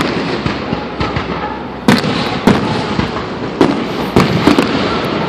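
Aerial fireworks going off: a string of sharp bangs at irregular intervals, each trailing off in an echoing rumble, over continuous crackling.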